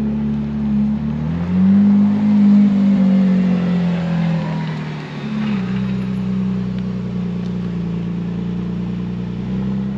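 A car engine running. Its pitch rises about a second and a half in as it is revved, sinks over the next few seconds, then holds steady.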